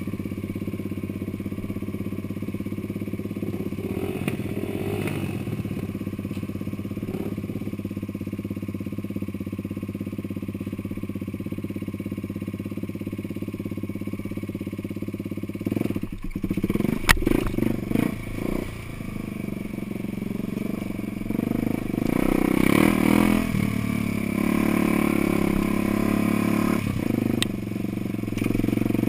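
An off-road vehicle's engine running steadily while it drives a rough trail, with a cluster of knocks and rattles about halfway through, and the engine working harder and louder for the last several seconds.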